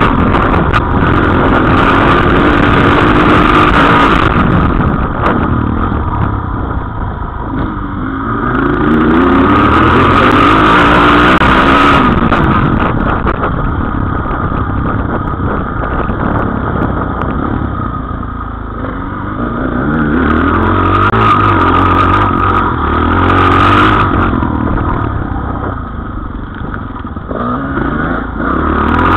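Single-cylinder dirt bike engine running hard along a trail, its revs repeatedly rising and falling as the throttle opens and closes, with the loudest stretches near the start, in the middle and late on.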